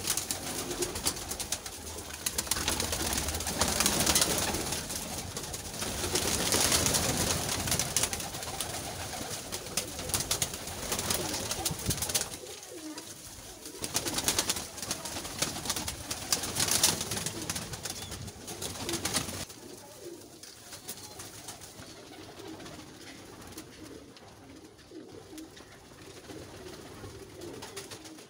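A flock of domestic pigeons cooing as they crowd together to feed, under a loud rushing, rustling noise. The noise stops abruptly about two-thirds of the way through, and after that the cooing is heard more clearly.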